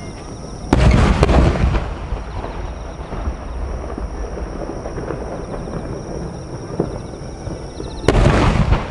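Large aerial firework shells bursting. Two booms come about half a second apart a little under a second in, each rolling into a long rumble, and another boom comes near the end.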